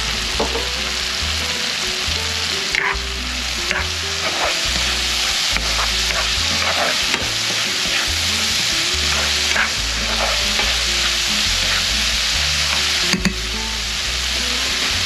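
Onions, garlic and tomatoes sizzling in a hot pan as they are sautéed and stirred, with a spatula now and then scraping and knocking against the pan.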